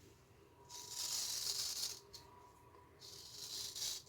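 Straight razor scraping through lathered stubble in two strokes of about a second each, with a high, raspy hiss.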